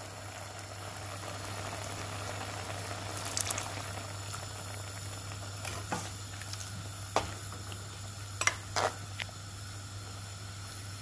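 Okra curry simmering and bubbling in a clay pot as thick coconut milk is stirred in with a metal spoon, the spoon knocking against the pot four or five times in the second half.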